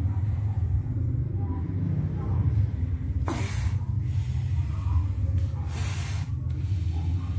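Juvenile crocodile hissing twice with its mouth gaped open as it is prodded and handled: a short sharp hiss about halfway through and a longer one near the end. A steady low hum runs underneath.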